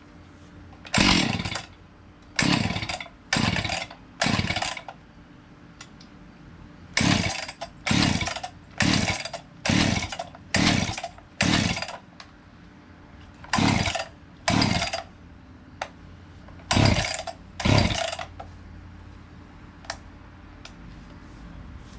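Husqvarna 257 chainsaw's 60cc two-stroke engine cranked by hand with the recoil starter: fourteen quick pulls in groups of four, six, two and two, each a short whirring rattle that dies away as the pull ends. The engine turns over but does not fire.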